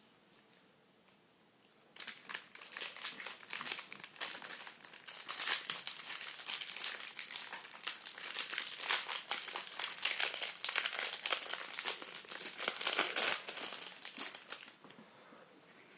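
Packaging of a trading-card hanger box being torn open and crinkled: dense, irregular crackling that starts about two seconds in and dies away near the end.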